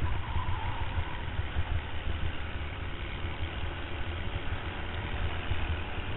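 Racing kart's engine running at racing speed, heard from the kart's own onboard camera, with a strong low rumble and steady pitch.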